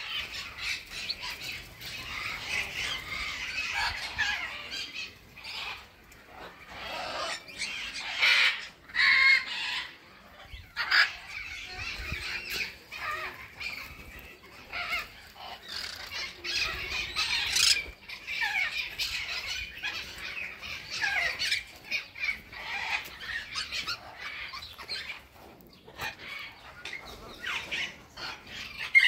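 A flock of small parrots squawking and chattering over one another, with a few louder single screeches standing out.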